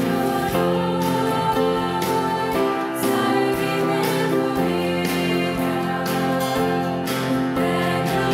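Youth choir singing a Christian hymn in Romanian, accompanied by piano and guitars, in slow sustained chords.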